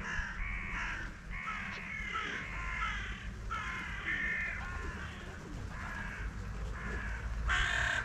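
A flock of crows cawing, many calls overlapping one after another, with a louder burst of calls near the end.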